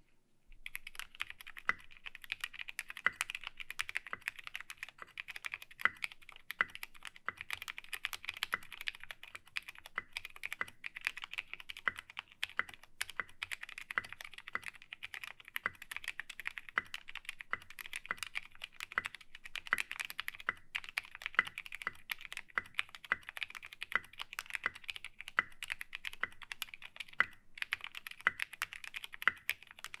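Continuous typing on an MC-76K "Fat Boy" mechanical keyboard with lubed Cherry MX Vintage Black linear switches and SA-profile keycaps, in an aluminium-topped case with no sound dampening: a dense run of keystrokes that starts about half a second in, broken by a few brief pauses.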